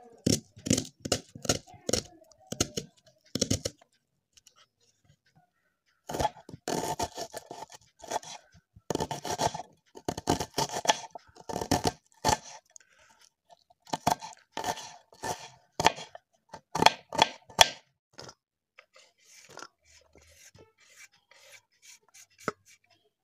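Kitchen knife slicing and chopping a red onion on a bamboo cutting board: crisp cuts, each ending in a knock on the board, in several quick runs with short pauses. Only faint clicks near the end.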